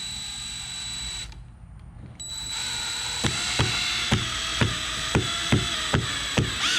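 Cordless drill running in two runs, the second one longer. Over the second run a regular ratcheting click comes about three times a second.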